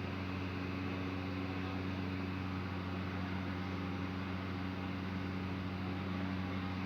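A steady mechanical hum with a constant hiss, unchanging throughout, with no chopping strokes.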